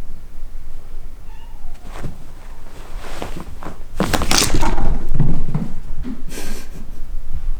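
Cats at play: a faint short meow about a second in, then louder noisy scuffling and cat sounds from about four seconds in.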